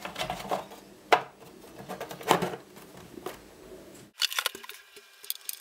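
Sharp clicks and knocks, a few in the first four seconds, as the door of a RAID drive enclosure is pressed back on and the case is handled; after that only faint light ticks.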